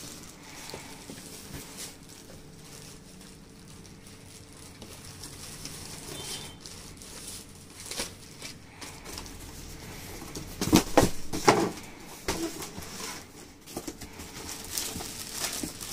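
Plastic-wrapped T-shirt packs rustling and crinkling as they are handled and lifted in and out of a cardboard carton, with scattered light clicks and a louder cluster of rustles and knocks about eleven seconds in.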